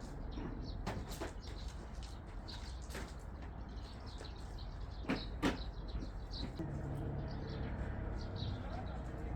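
Crickets chirping in short, repeated high calls over a low steady hum, with a few sharp clicks or knocks, the loudest two about five seconds in.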